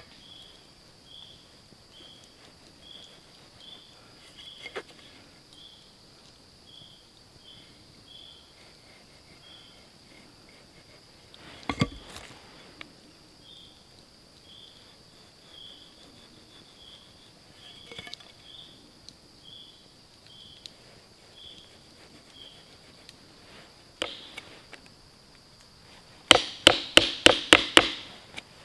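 A steady high insect drone with a short chirp repeating about every half second, and one sharp knock around the middle. Near the end comes a rapid run of about eight loud, sharp strikes: a hammer driving a chisel into wood to cut a mortise.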